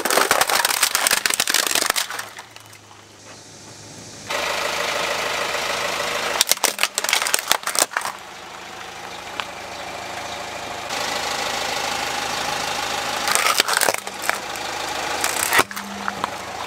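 Plastic toy vehicles cracking and crunching under a car tyre as it rolls over them, over the steady running of the car's engine. The cracking comes in bursts: a long run of cracks at the start, another about halfway through, and a few sharp cracks near the end.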